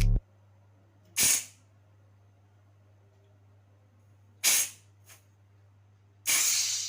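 Three short bursts of hissing gas blown through refrigerator tubing to flush it out, the last one longer than the other two, over a faint steady low hum.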